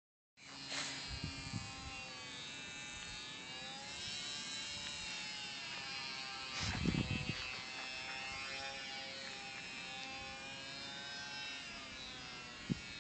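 Electric motor and propeller of a ParkZone T-28 Trojan RC plane whining in flight, the pitch slowly rising and falling as it manoeuvres. A low rumble comes in about seven seconds in.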